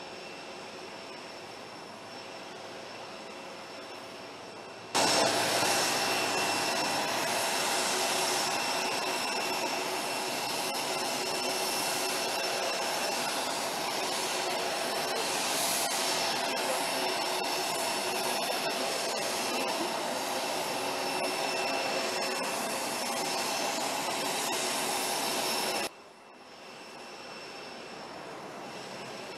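Jet aircraft engines running: a steady rushing noise with a high whine. It jumps to much louder about five seconds in and drops back abruptly to a fainter level a few seconds before the end.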